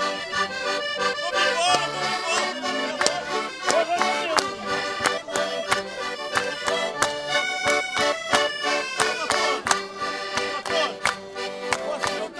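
Concertinas playing a lively traditional Portuguese dance tune, with a steady beat of sharp knocks through it.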